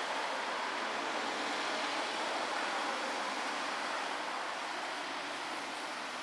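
Steady, even hiss with no distinct events, easing slightly in the last couple of seconds.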